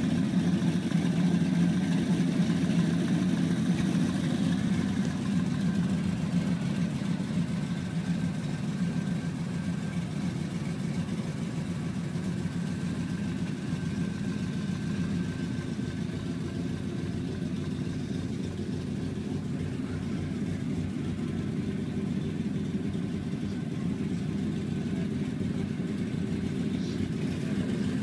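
1968 Chevelle Malibu's engine idling steadily, a little louder in the first few seconds.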